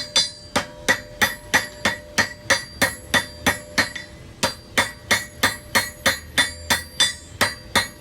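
Blacksmith's hammer striking iron at welding heat on an anvil, about three ringing blows a second, setting a forge weld.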